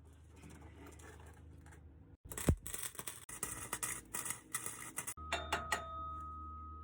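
Welder arc crackling through a short weld on a steel truck tailpipe, about three seconds of sputtering that starts and stops abruptly. It is followed by a few sharp clicks and a steady high tone.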